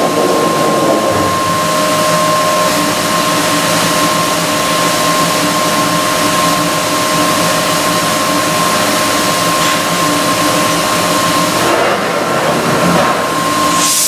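CNC stone machining center running: a steady high-pitched spindle whine over the hiss of its coolant water spray. A lower second tone in the whine drops out about two-thirds of the way through.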